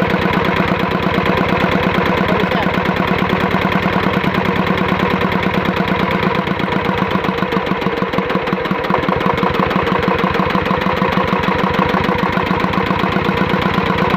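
Single-cylinder dompeng diesel engine running steadily, with an even, rapid beat of firing strokes.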